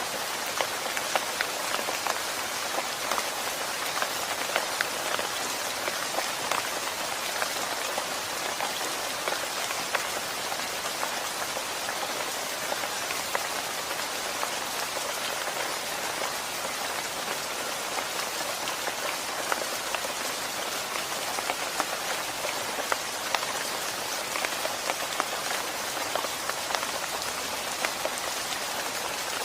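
Steady rain falling: an even hiss with many separate drops striking a surface.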